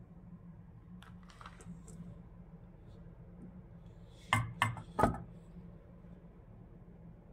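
A recurve crossbow being handled: faint rustling, then three sharp clacks close together a little over four seconds in as its hard stock and fittings are knocked or set down.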